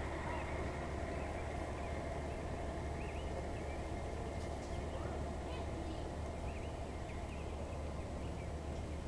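Gauge One (1:29 scale) model train cars rolling steadily past on an outdoor track, a continuous low rumble of wheels on rail, with birds chirping now and then.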